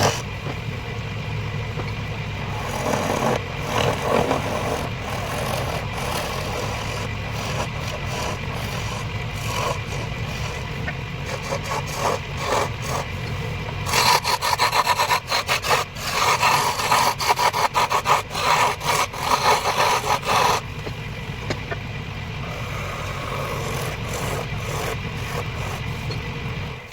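Wood lathe running with a hand chisel cutting into the spinning wood: a steady motor hum under rough scraping, which grows louder and more ragged for several seconds past the middle. The sound cuts off suddenly at the end.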